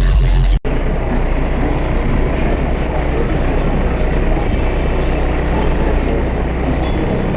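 Bass-heavy music from a car audio system's subwoofers stops abruptly about half a second in. A steady outdoor din with a low hum follows, like engines and background music around the cars.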